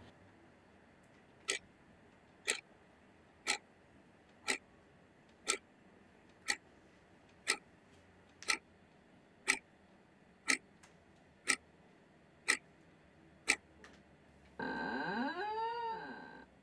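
Clock ticking once a second, thirteen sharp ticks in all. Near the end, a louder pitched sound that bends up and then down for about two seconds.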